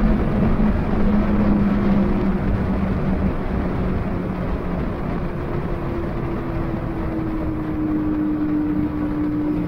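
A vehicle engine running at speed over heavy road and wind noise, its low steady note sinking slowly. A second, higher engine note comes in about halfway through and also drifts slightly down.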